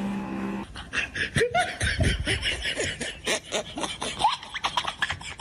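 A person laughing, a quick run of short snickers and giggles.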